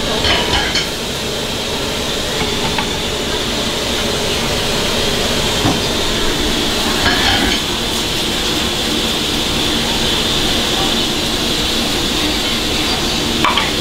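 Curry simmering and sizzling in a hot iron skillet over a steady background rumble, with a few clinks of chopsticks and metal on the pan.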